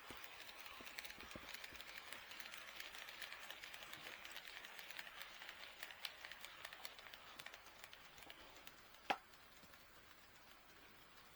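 HO-scale model train running on track: a faint rolling hiss scattered with small wheel and rail-joint ticks, fading away over about nine seconds. A single sharp click comes near the end.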